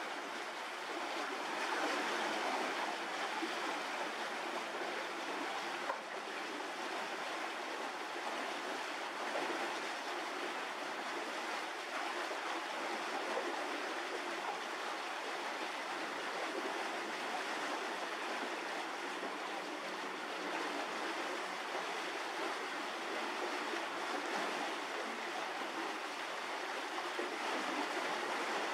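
Steady, even rushing noise like flowing water, with no distinct events.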